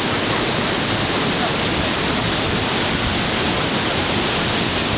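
Hossawa Falls waterfall: a steady, unbroken rush of falling water with a bright hiss.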